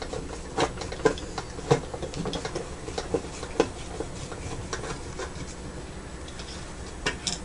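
Irregular light clicks and knocks of a computer power supply's metal housing and circuit board being handled and worked at with tools, with a few sharper knocks in the first few seconds and again near the end.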